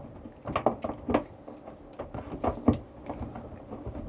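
Irregular light clicks and knocks of mounting bolts and hardware being handled and worked by hand into the threads of a Power-Pole pump, with one sharper knock near the middle.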